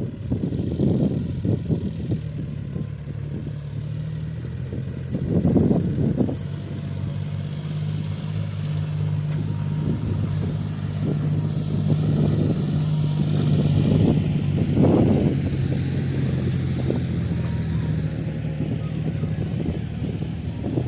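JCB 3DX backhoe loader's diesel engine running steadily while working, with louder surges about a second, five and a half and fifteen seconds in.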